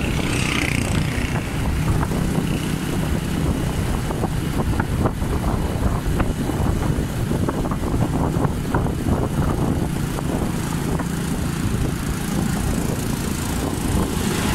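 Motorcycle engine running while riding along a road, with heavy wind rumble on the microphone.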